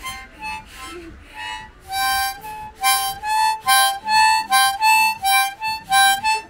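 A small reed wind instrument blown in short notes, moving back and forth between two or three neighbouring pitches. The notes are sparse at first, then come about three a second.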